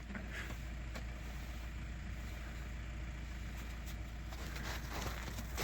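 A steady low rumble with a few faint clicks and light handling noises.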